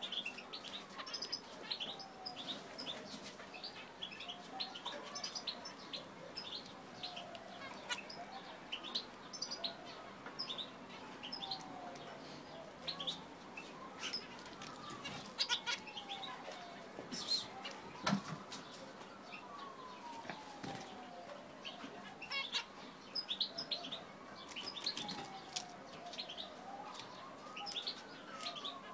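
Zebra finches giving many short, high chirps, with wings flapping and small clicks in their cage. A fainter tone slides up and down in pitch behind them.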